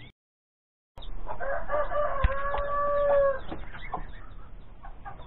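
A rooster crows once, starting about a second in, one long held call of about two seconds, followed by short clucks and calls of other poultry.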